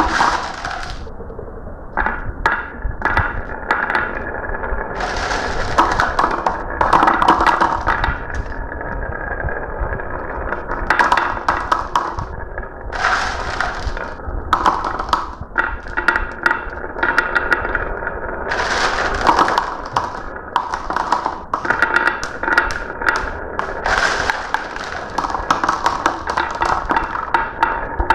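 Marbles rolling and clattering down a marble run, a continuous rolling rumble broken by many quick clicks and rattles as they knock against the track and each other.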